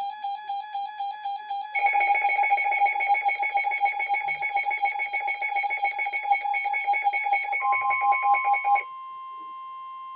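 Several NOAA weather radios sounding their alert beeps at once for a flash flood warning. One radio beeps about four times a second and another joins about two seconds in with faster, higher beeping. Near the end the beeps stop, leaving the steady weather radio warning alarm tone, quieter.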